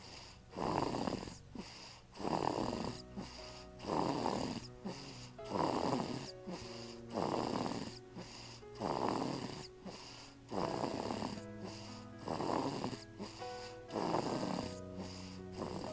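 Baby snoring in a steady rhythm, about one snore every one and a half to two seconds, with music playing softly in the background.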